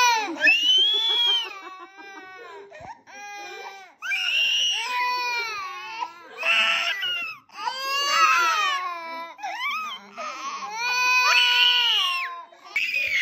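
Baby crying in a string of high-pitched wails, each about a second long, with short breaks between them.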